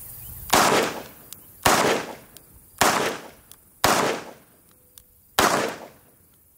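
A six-shot revolver being fired one-handed, five shots at about one a second, each shot ringing out briefly after the bang.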